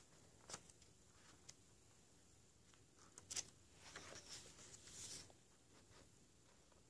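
Paper pages of a book being turned by hand: faint soft ticks, then quiet paper rustling a few seconds in.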